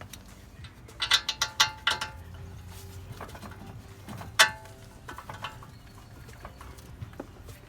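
Metal tools and parts clinking and clanking against each other, with short ringing tones after each strike: a quick cluster of clanks about a second in and one loud single clank a little past four seconds, then a few lighter clicks.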